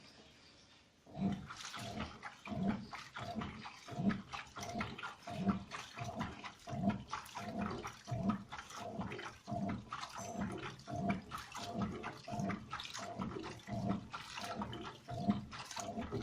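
Toshiba fully automatic top-load washing machine agitating its second rinse: the wash motor drives the drum in short repeated strokes, about one every 0.7 s, with water sloshing inside. It starts about a second in.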